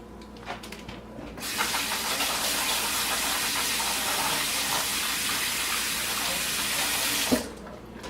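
Water running hard, as from a tap, switched on about a second and a half in and cut off sharply with a knock near the end.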